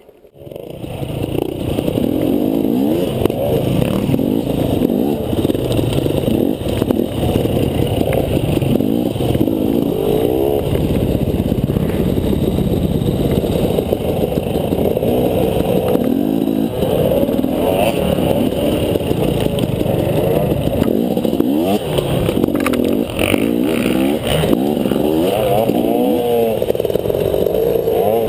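Enduro dirt bike engine under way off-road, its revs rising and falling again and again with the throttle, with some clatter from the bike over rough ground. The sound fades in at the start.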